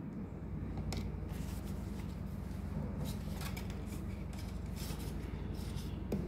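Spring-loaded SIM/microSD card slot of a solar CCTV camera being pressed by a fingertip: small plastic clicks and scrapes, the sharpest click near the end, the slot locking the card in. A low steady hum runs underneath.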